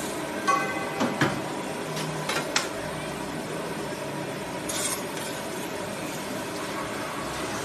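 Spatula and batter spreader knocking and scraping on a jianbing griddle. A ringing clink and a few light knocks come in the first three seconds, then a short scrape about five seconds in, over a steady background hum.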